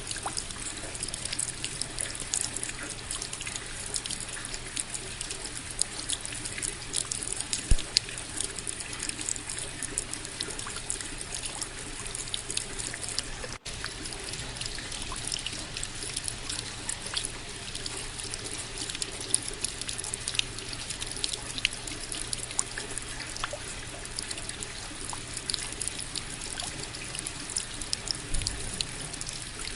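Steady rain: a continuous hiss of falling water with many sharp, close drop hits. A split-second dropout about halfway through.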